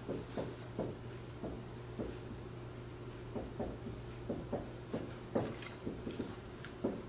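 Dry-erase marker squeaking and tapping on a whiteboard as a line of words is handwritten: a quick series of short separate strokes over a steady low hum.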